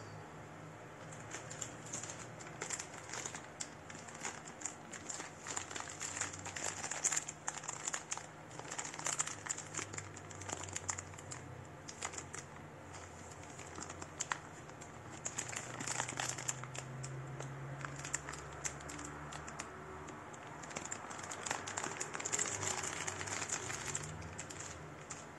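Plastic packaging crinkling as it is handled, in irregular bursts of small crackles with short pauses between them.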